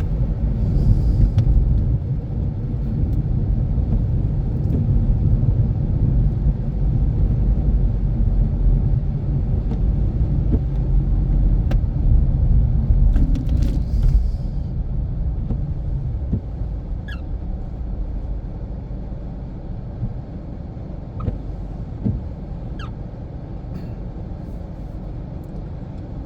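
Steady road and engine rumble inside a moving car's cabin on a snowy road, louder for the first part and easing off after about sixteen seconds, with a few faint ticks.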